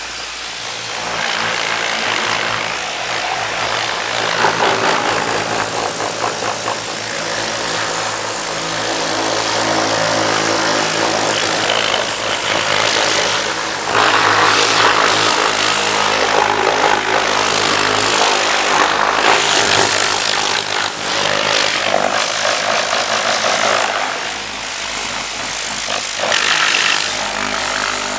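Compressed-air blow gun blasting air over an engine bay to spread out tyre-and-trim dressing: a continuous rushing hiss that swells and eases, louder from about halfway through, over a steady low hum.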